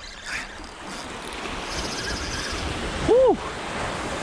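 Small surf waves washing and splashing in the shallows. About three seconds in, a short loud call rises and falls in pitch.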